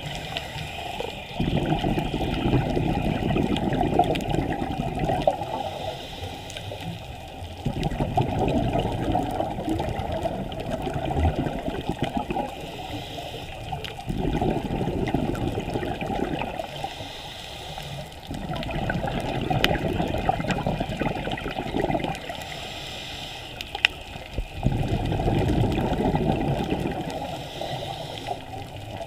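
Scuba regulator breathing underwater: about five long bubbling exhalations, each followed by a shorter, fainter hissing inhalation, in a slow, even cycle.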